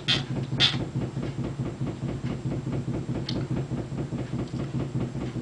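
Speedriter Chevron portable typewriter being handled: two sharp clicks near the start, then a fast, even run of small mechanical ticks over a low hum.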